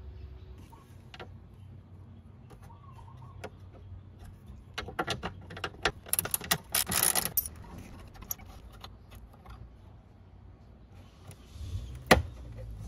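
Hand unclipping and handling small plastic parts under the rear of a Vespa GTS scooter: scattered clicks, a cluster of rattling clicks in the middle, then one sharp snap near the end.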